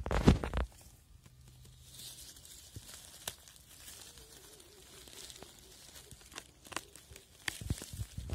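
Dry fallen leaves rustling and crackling as a hand works through leaf litter and grass, with a loud crunch at the start. A second crunchy burst near the end as the mushroom is pulled up with leaves clinging to its base.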